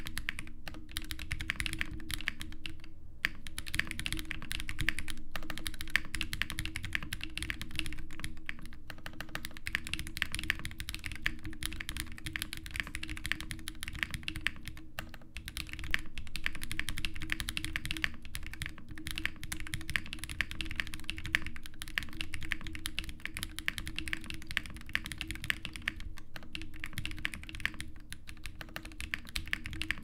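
Fast, continuous typing on a Zoom65 mechanical keyboard built with no internal foam, using lubed Durock POM linear switches and GMK doubleshot ABS keycaps. The keystrokes come as a dense stream of clicks, pausing briefly a few times.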